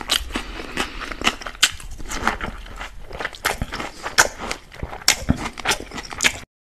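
Close-miked chewing of a mouthful of raw green bell pepper: irregular crisp, wet crunches and mouth clicks that cut off abruptly near the end.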